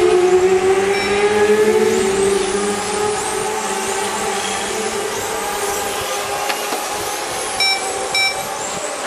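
Several electric radio-controlled on-road race cars whining around the track, their pitch rising and falling as they speed up and brake. Two short electronic beeps sound near the end.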